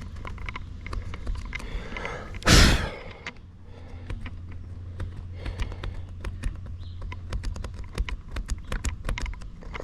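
Irregular small clicks and taps of hands and a tool working on a car's interior door panel and its trim, with one short, loud burst of noise about two and a half seconds in.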